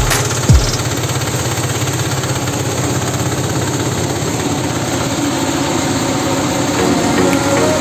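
Small air-cooled single-cylinder Solar QDX diesel engine running steadily at idle, with a fast even chugging beat. A short low thump sounds about half a second in.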